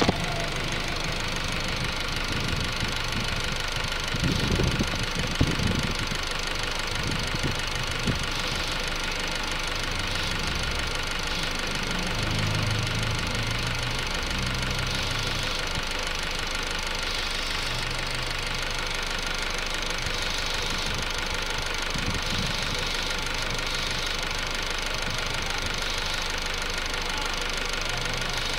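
A 2008 Honda Civic EX running steadily, with a low hum that comes and goes and a few knocks about four to six seconds in. This is the weird noise from the rear of the car that the owner has not yet identified.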